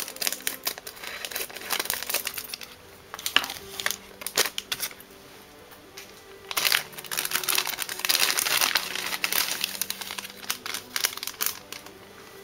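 Plastic packaging crinkling and crackling as it is handled and opened, in uneven bouts, the longest about seven to eleven seconds in, over faint background music.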